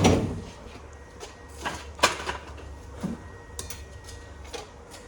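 A heavy thump at the start, then scattered knocks and a sharp click about two seconds in: heavy things being handled and set down.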